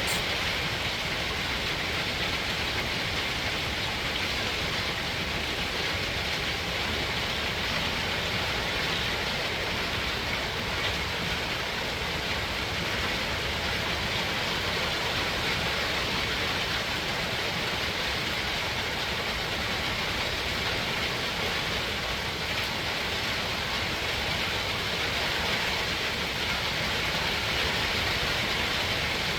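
Steady heavy rain falling during a thunderstorm, an even hiss that does not let up, with no thunderclap standing out.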